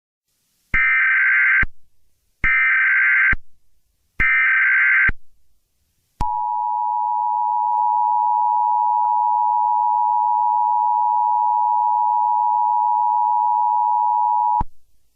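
Emergency Alert System header: three short bursts of SAME digital data tones, about a second each with a short gap between them. They are followed by the two-tone EAS attention signal, held steady for about eight seconds and then cut off.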